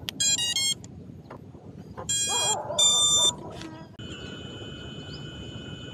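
FPV quadcopter's brushless motors sounding ESC beep tones when the battery is connected: a quick run of short beeps, then two longer beeps about two seconds in. From about four seconds the armed motors spin at a steady idle whine.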